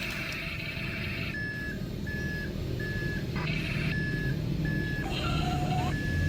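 A vehicle's reversing beeper sounds about six short beeps on one pitch, starting about a second and a half in, over a low engine rumble.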